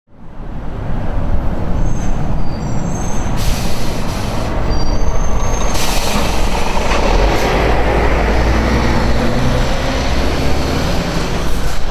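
Steady low rumble of heavy road traffic, with a few brief high-pitched squeals in the first five seconds.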